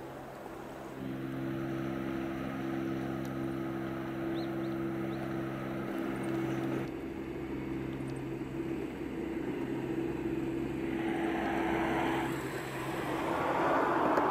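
Steady low drone of the cruise ship Nippon Maru's machinery heard across the water, a set of held low tones over a hiss of wind and water. The drone sets in about a second in and thins out about seven seconds in, while the hiss grows louder near the end.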